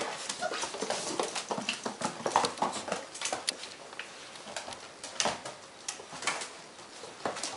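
Five-week-old Weimaraner puppies playing and scuffling on a hard floor: a busy patter of claw clicks, with a few short whimpers and squeaks.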